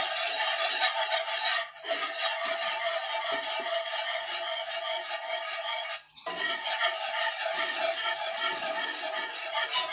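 Wire whisk scraping round a cast-iron skillet as it stirs a thick butter-and-flour roux, a continuous rasping scrape with two brief pauses, about two seconds and six seconds in.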